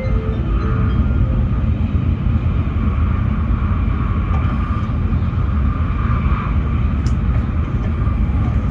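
Steady low rumble and rushing noise inside the passenger car of a Tokaido Shinkansen Kodama train running at speed, with a short click about seven seconds in.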